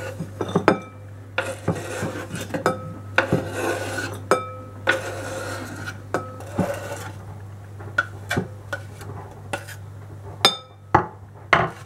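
Chef's knife scraping diced onion off a wooden cutting board into a glass bowl: stretches of blade scraping along the board, broken by sharp knocks of the knife on the board and clinks on the glass rim, some ringing briefly. A steady low hum runs underneath.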